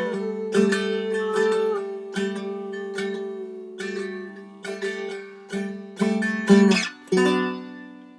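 Seagull Merlin, a four-string dulcimer-style instrument, strummed about once a second over its ringing drone strings. A final strum about seven seconds in rings out and fades away.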